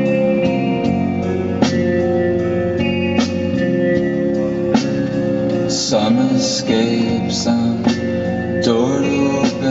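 Song playing: guitar-led music with a slide guitar and a slow, even beat, and a singing voice coming in about six seconds in.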